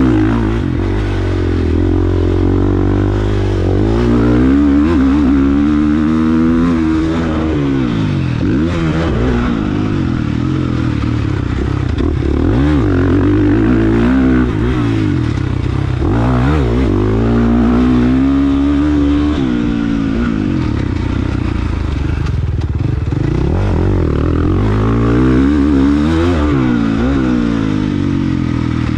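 KTM 450 dirt bike's four-stroke single-cylinder engine being ridden hard, its pitch rising and falling over and over as the throttle opens and closes and the gears change.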